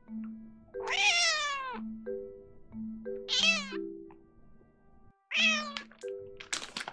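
A short-legged Genetta (Munchkin × Bengal) cat meowing three times: one long meow that falls in pitch at its end, then two shorter ones. Soft background music plays underneath, and a few sharp clicks come near the end.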